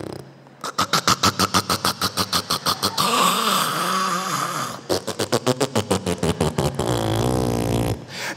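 A man imitating loud snoring into a microphone: two rounds of fast rattling snores, each running into a longer, wavering voiced breath.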